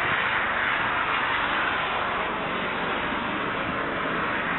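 Steady rushing noise of jet airliner engines at a distance, with no distinct tones or sudden sounds.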